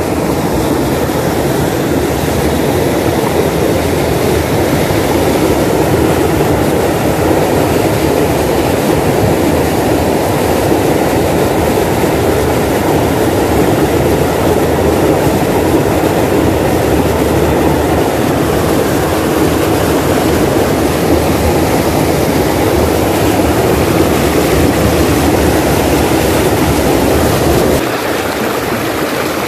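Shallow mountain stream rushing over rocks close by, a loud, steady roar of water. It eases slightly near the end.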